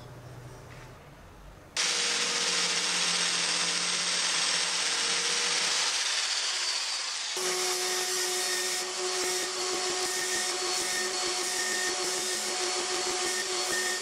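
Angle grinder with a sanding disc starts abruptly about two seconds in and runs at speed, sanding the end of a wooden elm hammer handle. About halfway through, the sound changes abruptly to a steadier whine with a fine rapid flutter.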